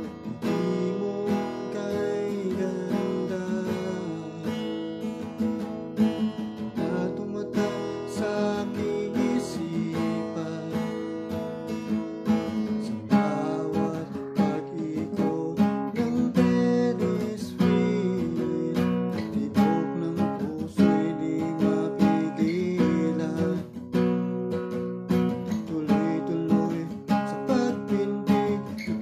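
Acoustic guitar strummed, playing a continuous run of chords in a steady rhythm.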